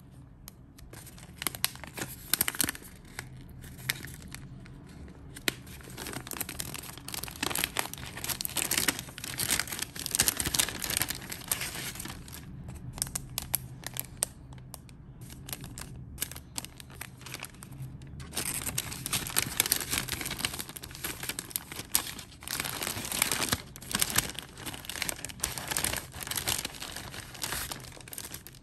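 Cellophane wrapping and a kraft-paper envelope crinkling and rustling as they are handled and opened, in long stretches of dense crackle with a quieter spell around the middle.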